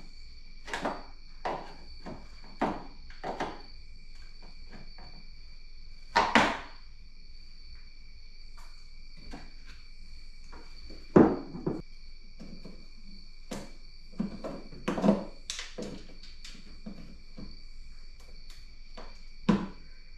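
Irregular sharp clicks, snaps and knocks as the old Mustang cowl clips, whose Phillips heads are stripped, are cut off and the cowl is handled. The loudest knocks come about six and eleven seconds in.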